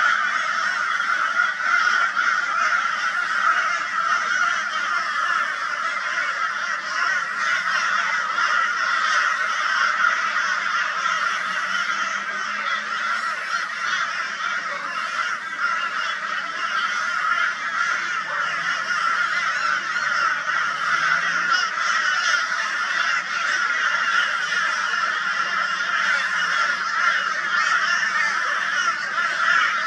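A flock of crows giving loud, raucous calls nonstop, many overlapping into one continuous din: mobbing calls aimed at a barn owl.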